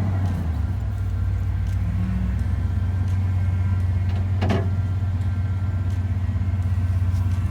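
Ford F-150 engine idling steadily, just restarted after a timing chain replacement and idling a little high, with a faint high whine over it. A short sharp falling squeak about four and a half seconds in.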